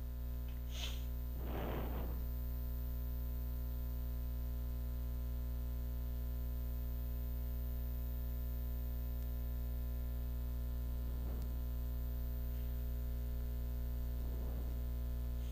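Steady electrical mains hum with a buzz of many overtones, unchanging throughout, from interference in the recording's audio line.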